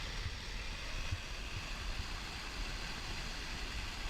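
A mudslide of mud and water rushing down a mountain channel: a steady rumble with a hiss over it.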